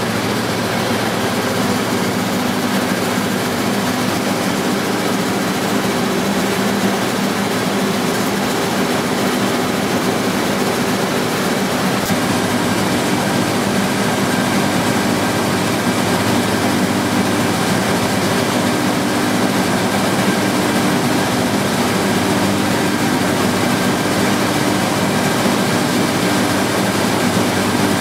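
1954 Belliss & Morcom high-speed enclosed compound steam engine running steadily, driving a grid-connected generator: an even machine noise with a steady low hum.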